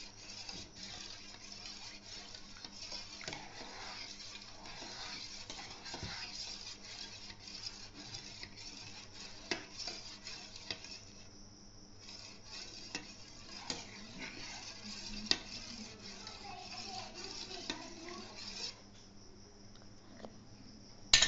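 Metal spoon stirring milk and yogurt starter in a metal pot, scraping and clinking against the sides, with a few sharper clinks. The mixing starts the milk setting into yogurt. The stirring stops near the end.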